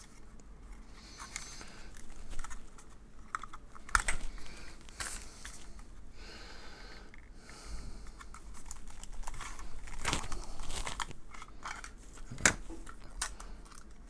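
Handling noise from a plastic smoke detector being worked apart and its mounting base separated: scattered small plastic clicks, scrapes and light rustling, with a sharper click near the end.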